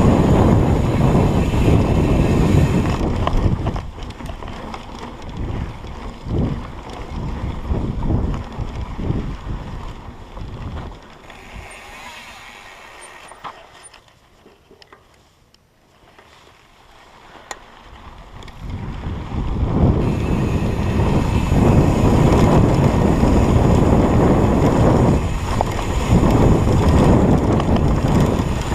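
Wind buffeting the microphone at speed, mixed with knocks and rattles from rough ground. It fades to a low about halfway through and builds back to loud after about twenty seconds.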